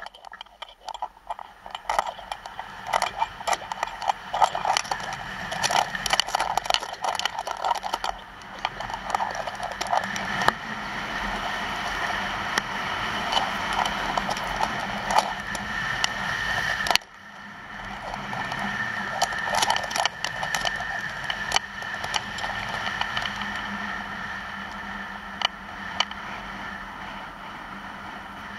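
Skis scraping and chattering over hard-packed snow on a downhill run, with many sharp clicks in the first several seconds, then a steadier hiss. The sound breaks off sharply about seventeen seconds in and picks up again at once.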